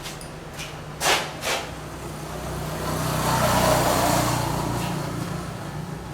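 A road vehicle passing by: its noise swells to a peak a little past the middle and then fades. Two short knocks come shortly before it.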